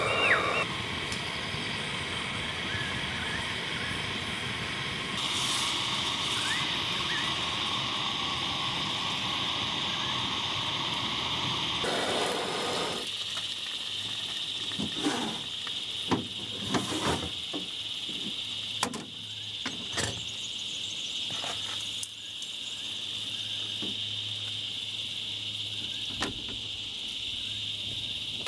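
Outdoor ambience with a steady high-pitched insect drone. In the second half a faint low hum runs underneath, and a scattering of sharp clicks and knocks comes through.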